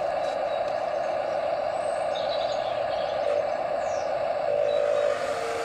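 Steady drone of a radio-controlled model construction vehicle's motor, rising a little and picking up a few steady tones near the end. Small birds chirp faintly over it.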